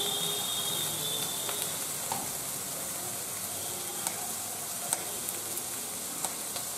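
Brinjal pieces and green peas frying in oil in a kadai: a steady sizzle, with a few sharp pops now and then.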